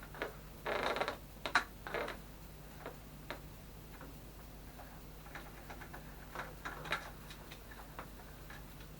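Scattered light clicks and ticks, several close together in the first two seconds with short rustles, then sparser: small plastic and metal parts and tools being handled while taking apart a desktop PC.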